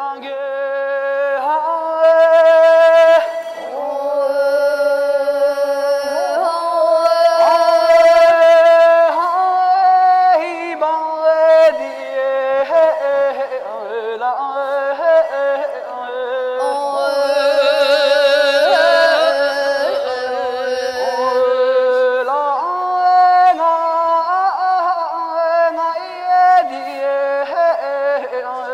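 Tibetan opera (Ache Lhamo) singing: a single voice holding long, ornamented notes that waver and slide between pitches.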